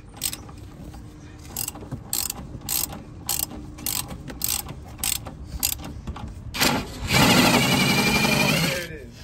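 Hand socket ratchet clicking in short strokes on a suspension nut, then a power tool runs for about two seconds near the end, louder than the ratchet.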